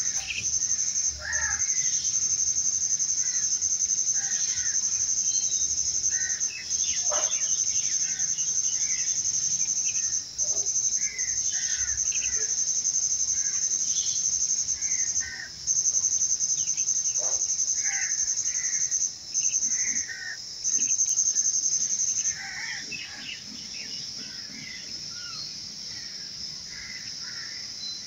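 A high, steady insect trill, breaking off briefly several times and stopping about 22 seconds in, with scattered bird chirps throughout.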